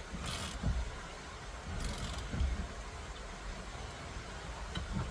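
Metal hand tools being handled: two short metallic rattles, near the start and about two seconds in, with dull low knocks between.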